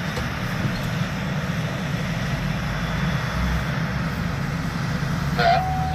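Steady low hum of a vehicle engine running. A steady high tone starts near the end.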